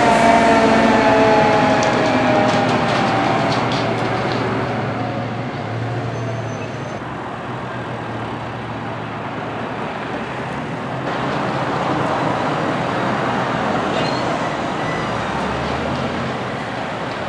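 Street traffic: a passing vehicle's engine note falls in pitch over the first few seconds, then a steady rush of road noise with a low engine drone underneath.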